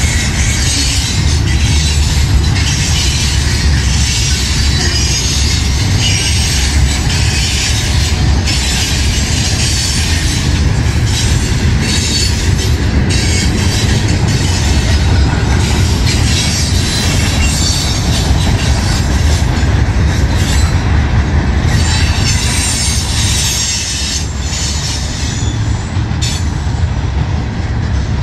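Loaded ballast hopper cars of a freight train rolling past close by: a steady, loud rumble of steel wheels on rail with a hiss over it, and occasional clacks, more of them in the later part.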